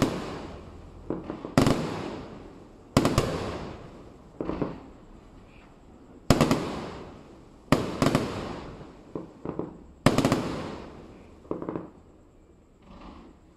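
Aerial firework shells bursting overhead: about six loud booms, one every one to three seconds, each trailing off in a rolling echo, with smaller cracks in between. The bangs stop about two seconds before the end.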